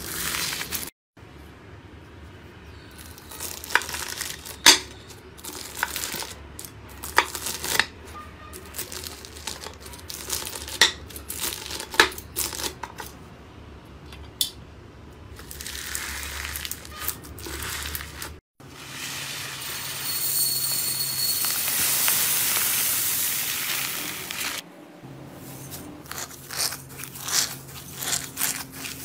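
Foam-bead slime (floam) squeezed and poked by hand, making crunchy crackling with sharp pops and clicks. Partway through there is a few seconds of steady hiss. Near the end comes dense crackling as fingers work through sequin-covered slime.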